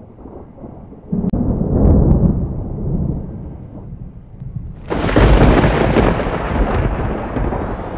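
Loud, low rumbling noise that swells about a second in, eases off, then suddenly becomes louder and brighter about five seconds in.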